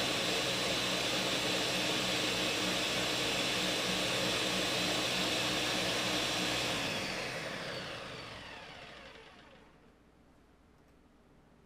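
Ninja countertop blender running at full speed on a thick green smoothie of frozen strawberries and leafy greens. It is switched off a few seconds in, and the motor and blade spin down with a falling whine, fading out about ten seconds in.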